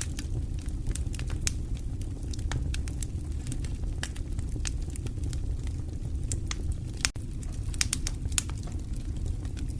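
Fire in a fireplace crackling: sharp, irregular pops and snaps over a steady low rumble of the flames, with a brief drop-out just after seven seconds.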